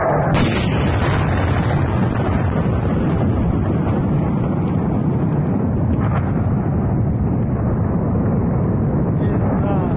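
Ammunition depot exploding: the blast hits suddenly, then a loud continuous rumble carries on without letting up.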